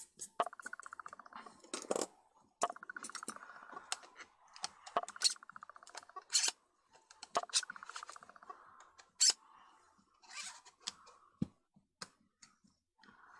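Parts of a Vivitar Series 1 70-210 mm zoom lens being handled: sharp clicks and taps of metal and glass, with three stretches of a fine, even rasp as a part is turned or rattled in its barrel.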